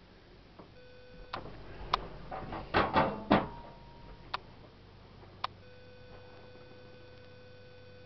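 Clicks and knocks of an RV refrigerator door being handled and shut, with a short clatter about three seconds in, then two single clicks. A faint steady whine is heard briefly near the start and again from the last click on.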